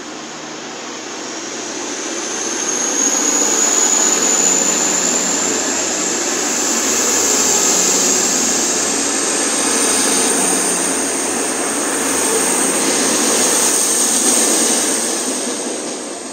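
Class 222 Meridian diesel-electric multiple unit departing and accelerating past at close range, its underfloor diesel engines running under power with a high whine that rises slowly in pitch. The noise builds over the first few seconds and fades near the end as the train pulls away.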